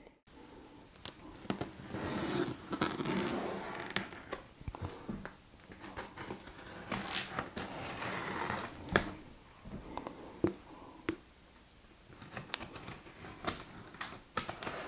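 A large cardboard box being opened: tape on the carton slit and torn, with cardboard scraping in two longer stretches and a few sharp knocks as the box is handled.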